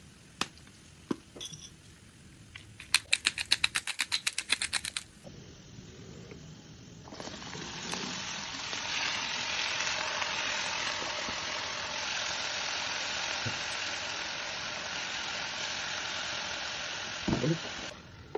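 A hand salt grinder clicking rapidly for about two seconds over the pan. Then chopped spinach and potato go into hot oil and sizzle loudly and steadily, and near the end there is a low knock as a glass lid goes onto the pan.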